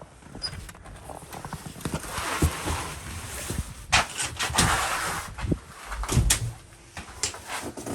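A door being opened and shut, with a run of knocks, clatters and footsteps; the loudest knocks come about four and six seconds in.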